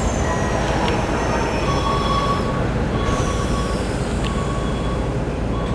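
The sliding doors of a Keikyu New 1000 series carriage close over a steady low hum, while a door-closing chime beeps on and off from about two seconds in. Two high whines fall in pitch, one at the start and one about three seconds in.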